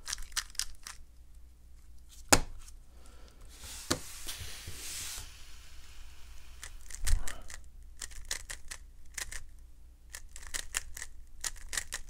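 A plastic 3x3 speed cube being turned by hand: quick runs of clicks and clacks as the layers snap round, with short pauses between them. There is a dull knock about seven seconds in.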